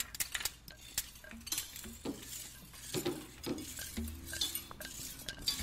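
Audio composition made from the sounds of found street tools: irregular sharp taps and knocks, with a low steady hum coming in about four seconds in.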